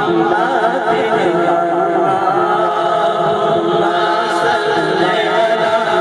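A male voice sings an unaccompanied naat (Urdu devotional song in praise of the Prophet) through a microphone. Backing singers join in, giving a sustained choral sound under the lead voice.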